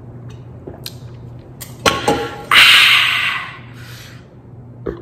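Close-miked drinking from a stainless steel tumbler: a sharp click about two seconds in as the drink ends, then a loud breathy exhale lasting about a second and fading.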